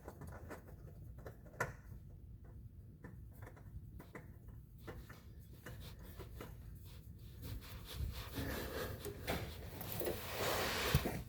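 Hands handling a new oil filter: scattered small clicks, then a rubbing, scraping sound that builds near the end as the filter is worked into place by hand.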